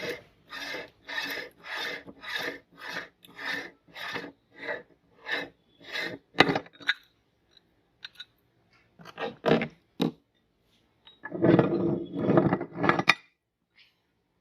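Meat grinder grinding up an item: rhythmic scraping, rasping strokes just under two a second for about seven seconds. Then, after a brief pause with a few clicks, come two short strokes and a couple of longer grinding bursts.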